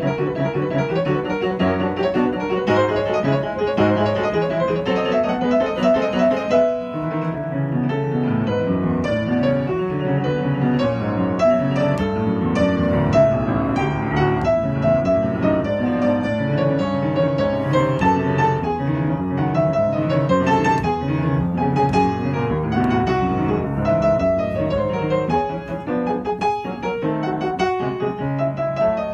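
Solo piano playing a classical piece, notes sounding continuously with a short break in the texture about seven seconds in.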